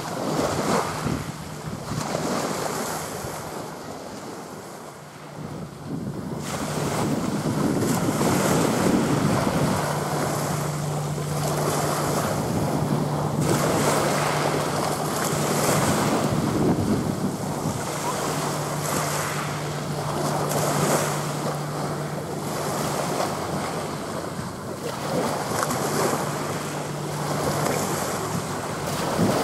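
Wind gusting over the microphone with small waves breaking along the shore, swelling and falling. A steady low hum runs under it through most of the second half.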